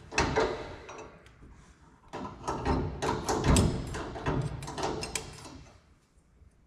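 A drawer being pulled open and rummaged through, small metal parts clattering and knocking in a run of rattles that dies away near the end.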